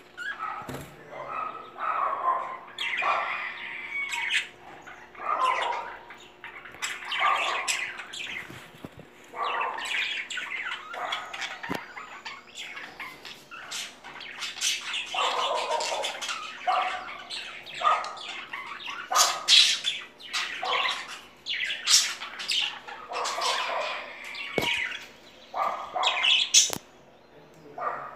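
Budgerigars chattering, a steady string of short calls.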